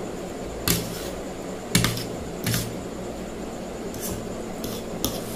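Metal fork and spoon clicking and scraping against a plate while eating ramen noodles: about half a dozen sharp, irregularly spaced clinks, the loudest in the first half.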